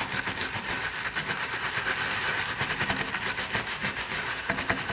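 Stiff palmyra-fibre brush scrubbing back and forth over a CNC-routed wood carving, a quick steady scratching to clear the fuzz left at the base of the carved detail.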